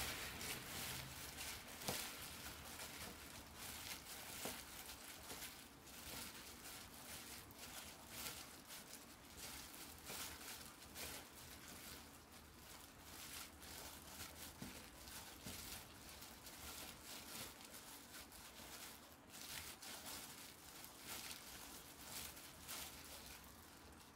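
Faint, irregular rustling and squishing of a plastic-gloved hand squeezing and tossing dried pollack strips in sticky gochujang seasoning in a glass bowl.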